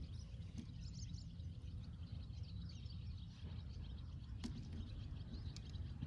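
Outdoor background of small birds chirping over a steady low rumble, with a few faint clicks.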